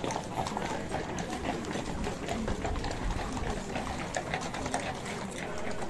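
Hooves of several horses clopping irregularly on cobblestones, over a low murmur of a crowd.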